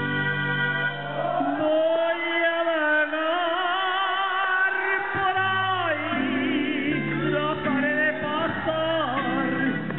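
A man singing a Spanish-language song into a microphone over an instrumental backing. About a second and a half in he holds one long note with vibrato for about four seconds, then drops off it as the backing carries on.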